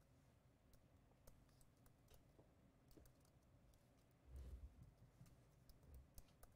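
Near silence: faint room tone with scattered soft clicks and a low thump about four and a half seconds in.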